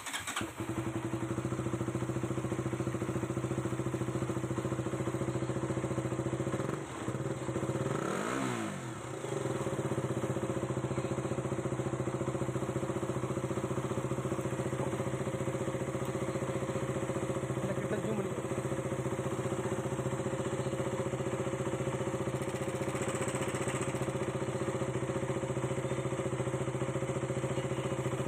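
KTM Duke 200's single-cylinder engine starting up and idling steadily, with a brief throttle blip about eight seconds in. It runs without timing chain rattle after a new timing chain adjuster was fitted.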